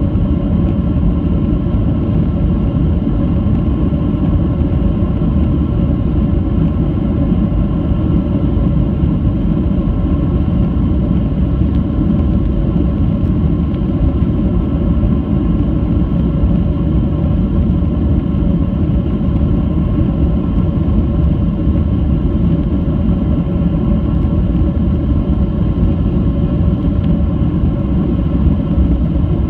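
Steady cabin noise of a Boeing 737-800: its CFM56-7B turbofan engines and airflow give a loud, even rumble with a steady hum over it that does not change.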